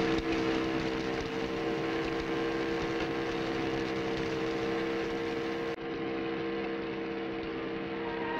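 A small electric motor runs steadily with a hum, shaking a batch of plastic balls that rattle and bounce inside a glass cylinder: a tabletop model of molecules in motion.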